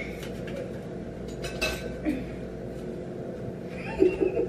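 A few light clinks and taps of kitchen utensils and dishes on a counter, spread out and faint. A brief bit of voice comes near the end.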